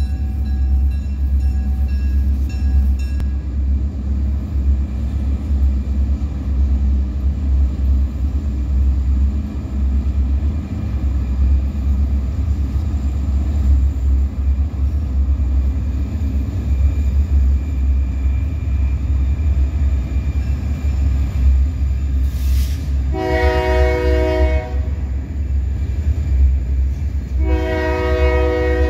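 Freight train rolling past with a steady low rumble. Near the end the locomotive horn sounds two long blasts, each well over a second, a few seconds apart.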